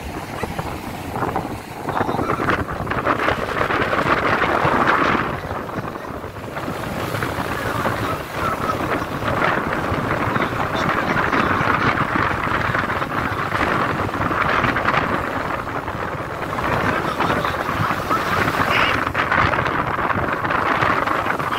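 Sea surf washing up and running back on a sandy beach, with wind buffeting the microphone; the rush swells and eases every few seconds.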